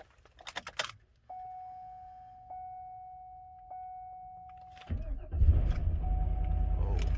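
Keys jangling and a dashboard warning chime sounding repeatedly, then about five seconds in the 2007 Cadillac Escalade's 6.2-litre V8 cranks briefly on its newly replaced starter, catches and settles into a steady idle: the no-start fault is cured.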